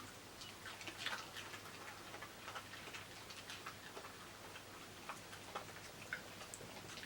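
Dogs chewing raw vegetables: irregular crisp crunching clicks, a little denser about a second in.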